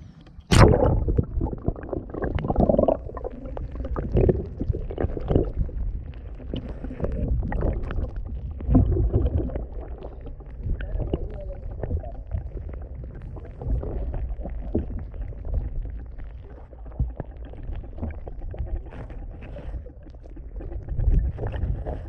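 Muffled low rumbling and gurgling of river water heard through a camera held underwater. A sharp splash about half a second in marks the camera plunging below the surface, and after it the water sound surges and eases irregularly.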